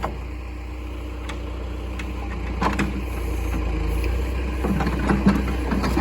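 An engine running steadily at a low, even hum, with a few sharp knocks about halfway through and again near the end.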